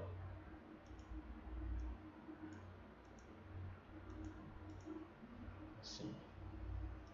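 Computer mouse clicking, a scatter of faint, quick clicks as options are picked in a settings menu, over a low steady hum.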